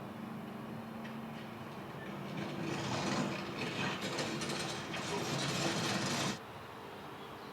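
Construction machinery working on a river rebuilding site: a steady engine hum, then about four seconds of loud mechanical grinding and clattering from a couple of seconds in, which stops abruptly near the end.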